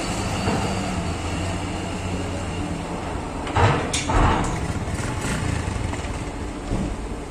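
Old truck's engine running at low revs as it drives up the ramp into a ferry's vehicle deck, fading slowly as the truck moves inside. A brief burst of louder noise comes about halfway through.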